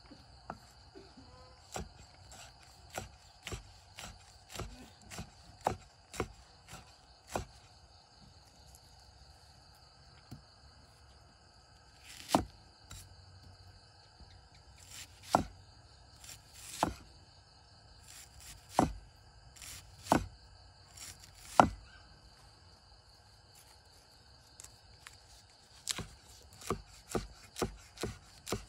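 Cleaver chopping on a thick round wooden chopping block, sharp knocks of the blade on wood. Quick runs of chops come near the start and the end, with single heavier strikes about a second and a half apart in the middle. A steady high-pitched drone runs behind.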